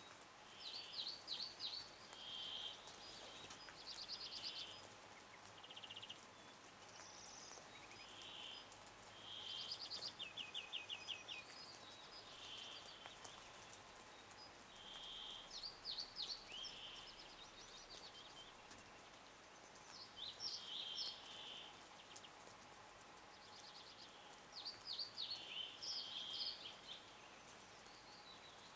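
Songbird singing short phrases of whistled and down-slurred notes, a phrase every couple of seconds, with a quick trill of about eight notes around ten seconds in.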